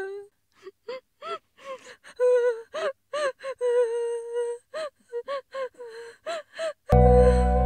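A high-pitched voice crying in short gasping, whimpering sobs, each sob rising and falling in pitch, a few drawn out a little longer. About seven seconds in, music with a low steady bass comes in.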